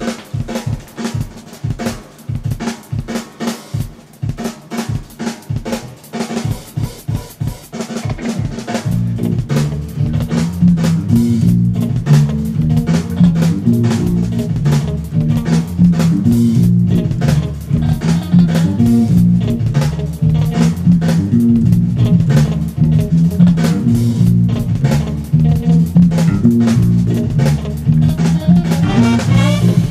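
Funk drum groove of snare and kick alone for about the first nine seconds, then an electric bass guitar comes in with a busy, syncopated funk bass line over the drums.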